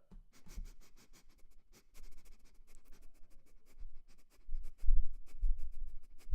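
Rapid, irregular small clicks or taps, several a second, with a few dull low thumps about five seconds in.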